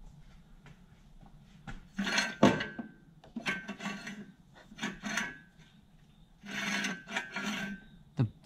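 Long steel support bar scraping through the tube sleeve of an engine stand, metal on metal: about five separate scraping strokes, starting about two seconds in.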